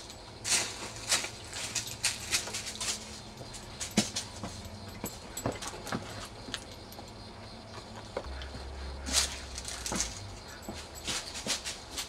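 A dog moving about over dry leaves and bare ground, making irregular short rustles and clicks.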